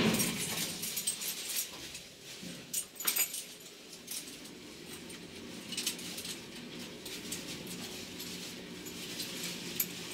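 Schindler passenger lift car travelling down: a faint steady hum, with scattered light clicks and metallic jingles.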